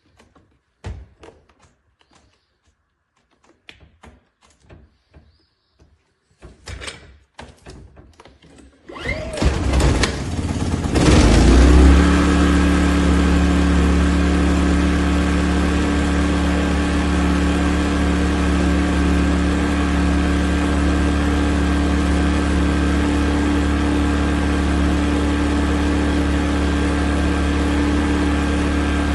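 Westinghouse portable inverter generator engine starting about nine seconds in, revving up and settling into a steady run. A few light clicks and knocks come before it.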